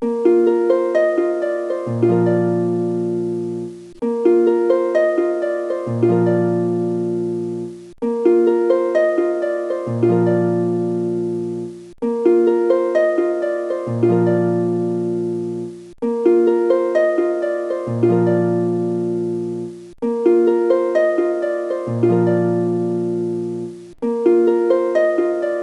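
Background music: a plucked-string melody looping every four seconds, with a low bass note joining in the second half of each loop.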